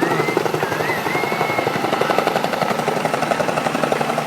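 Helicopter rotor chopping in a rapid, even rhythm as the helicopter flies close by. A wavering high whistle rises and falls over it in the first second and a half.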